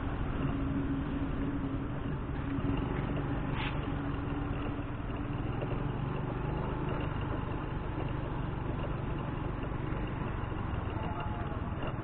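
A vehicle's engine running, with steady road noise and a low, even hum.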